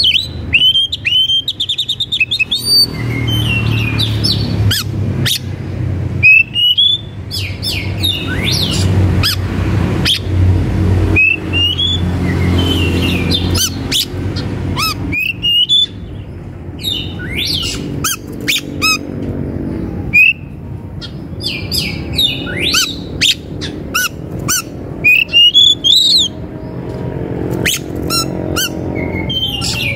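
Birds chirping and calling in quick succession, many short rising chirps and squawks with sharp clicks, over a low steady hum.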